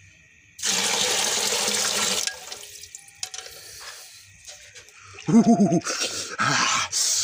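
Cold well water poured from a bucket into a large aluminium pot: a loud gush of about a second and a half, then sloshing and drips. Near the end a short shivering cry from the man.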